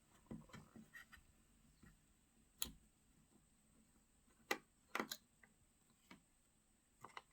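Faint, scattered clicks and ticks of a mini screwdriver working the small screws on a smartphone's internal metal bracket, with a few sharper single clicks among them.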